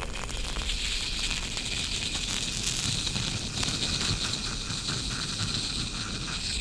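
Metal challenge coin set on dry ice, hissing and crackling steadily as the ice turns to gas under the warmer metal, with no clear pitched squeal.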